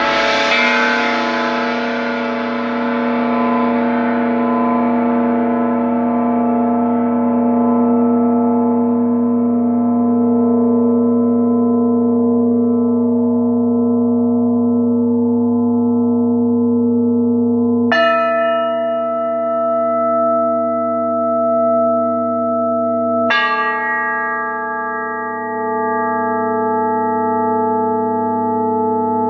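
Large struck metal percussion ringing. A strike at the start blooms into a long, shimmering ring that slowly dies away, and two more strikes about 18 and 23 seconds in each set several steady tones ringing on together.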